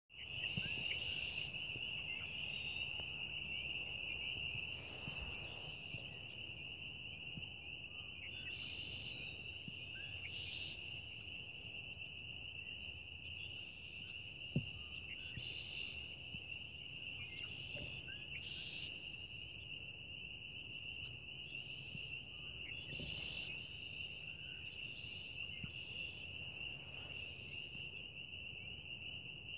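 Red-winged blackbird singing, its songs breaking in every few seconds over a steady high-pitched whine.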